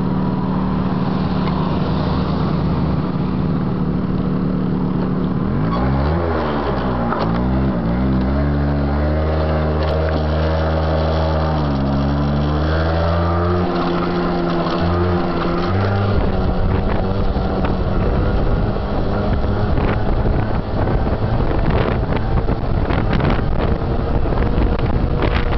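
Yamaha moped engine idling steadily, then revved in a few blips and rising in pitch as it pulls away and accelerates. About two-thirds of the way through, wind rushing over the microphone at riding speed covers most of the engine sound.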